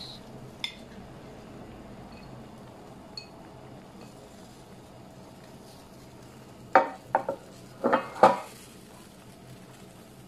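Utensils clanking against a cooking pot while ingredients go into a hotpot: a couple of faint clicks, then two quick clusters of sharp knocks about two-thirds of the way through.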